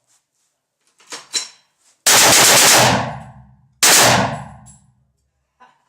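Two bursts of machine-gun fire, loud enough to overload the recording, each trailing off in a long echo; the second burst is shorter. A few small metallic clicks come just before the first burst.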